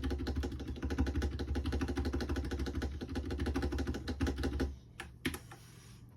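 Tecware Spectre Pro mechanical keyboard being typed on quickly, a dense run of key clicks that stops about five seconds in after a few last separate keystrokes.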